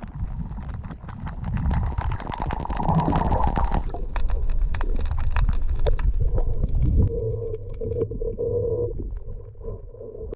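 Muffled underwater water noise on a diving action camera: a low rumble of moving water with many small clicks and knocks. A steady low hum comes in about seven seconds in.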